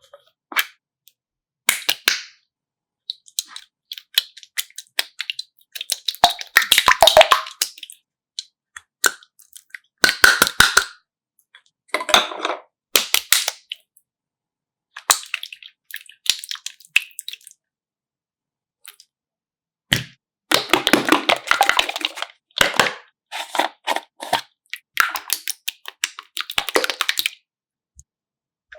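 Slime being squeezed and worked by hand, crackling and popping with small air-bubble clicks in short bursts with silent pauses between.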